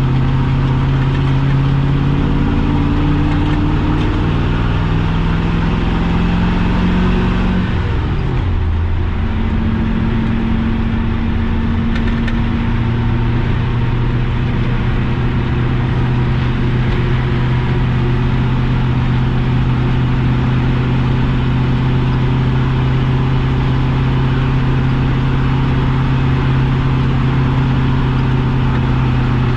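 Chevy 6.0-litre Vortec V8 pulling a heavy trailer load: revs climb steadily for about seven seconds, break off as the four-speed manual is shifted up, then the engine lugs along at a steady low speed.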